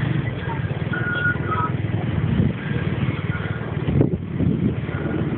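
Vehicle engine running low and steady while driving along a narrow street, with a few short high beeps about a second in.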